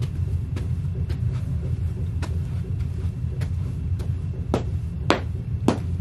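Sheepskin UGG boots stomping on a plastic chair mat over carpet, about two thuds a second, heaviest near the end, over a steady low rumble.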